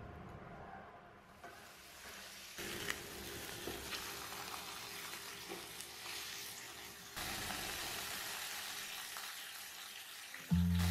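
Minced beef-and-chicken hamburger steak patties sizzling in a frying pan, with a few small pops of spitting fat. Background music starts loudly near the end.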